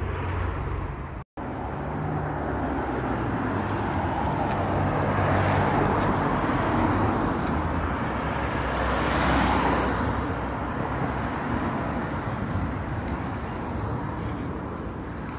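Road traffic: cars passing on a busy road over a steady low rumble, swelling twice as vehicles go by. The audio drops out for an instant about a second in.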